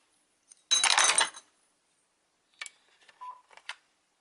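A burst of clinking and rattling as small hard laptop parts are handled, about a second in, followed by a few light clicks near the end.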